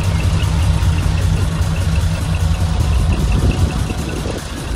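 Diesel engine of a large decorated truck idling with a steady low hum.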